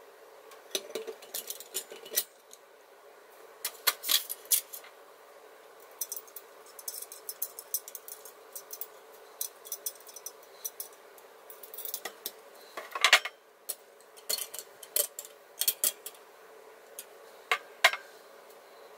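Small metal parts of a Coleman 200A gasoline lantern clinking, tapping and scraping against each other as the lantern is put back together after its generator work. The clicks are light and irregular, with one louder clatter about two-thirds of the way through.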